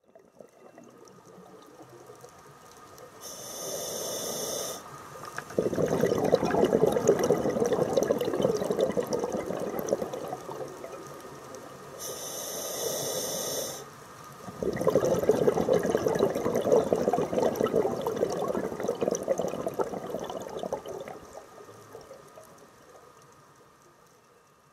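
Scuba diver breathing through an open-circuit regulator underwater: a short hissing inhale, then a long loud rush of exhaled bubbles, twice. The bubbles fade out near the end.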